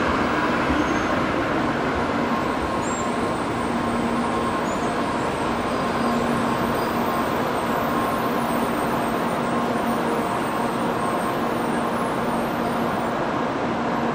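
N700 series Shinkansen train rolling slowly along the platform as it brakes to a stop, a steady rolling and running noise with a faint steady hum.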